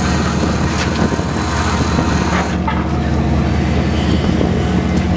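Boat engine running at a steady low drone, with a couple of light knocks.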